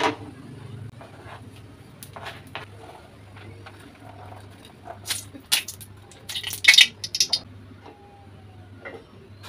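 Pots and pans at a gas stove: an aluminium saucepan lid clanks down at the start, then corn kernels are tipped from a plastic bowl into a saucepan of water with scattered knocks. A loud cluster of clinks and rattles comes about five to seven and a half seconds in, over a steady low hum.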